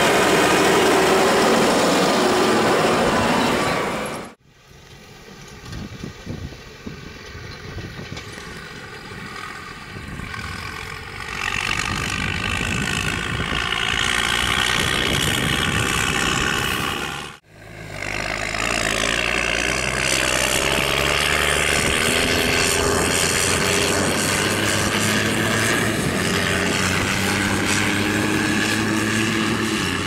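New Holland tractor's diesel engine pulling a loaded manure spreader under load, heard in three clips with abrupt cuts about four seconds in and again past seventeen seconds. The last stretch holds a steady engine note.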